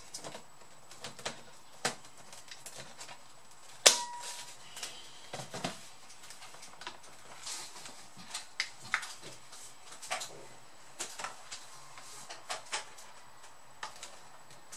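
Scattered plastic clicks and knocks of a Dell Vostro 3550 laptop being handled: the battery fitted into its bay, the laptop turned upright, set on the desk mat and its lid opened. One sharp click about four seconds in is the loudest.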